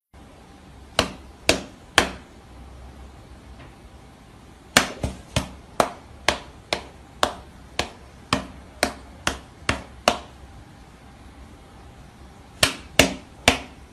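Sharp slapping taps as a cat standing on its hind legs strikes a person's open palm with its paws. There are three taps about a second in, then a steady run of about two a second through the middle, then three more near the end.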